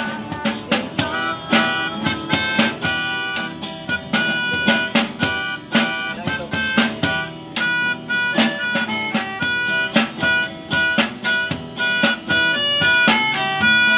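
Instrumental music with a steady rhythm of plucked or strummed guitar-like strings and held melody notes, without singing.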